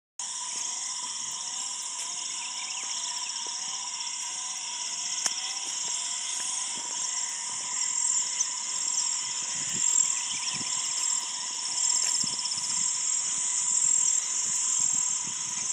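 A dense chorus of crickets and other insects keeps up a steady, high trilling. Under it a short rising call repeats regularly, about every two-thirds of a second.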